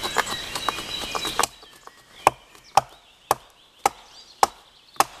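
Hatchet chopping into wood in short, sharp, regular strikes, about two a second. Under the first second and a half there is a hissy, chirping background that cuts off abruptly.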